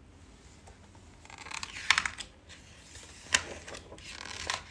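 A picture book's pages being handled and turned: a brief rustle of paper about a second in, with a few sharp taps and clicks.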